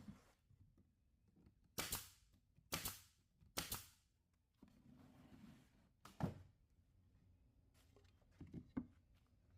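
A handful of sharp knocks or clacks, irregularly spaced: three close together in the first four seconds, one more a little past halfway, and a softer pair near the end.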